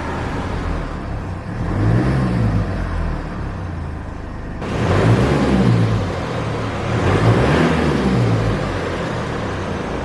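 Mercedes GLE 350 de's four-cylinder diesel engine idling and revved three times, the pitch rising and falling back with each rev.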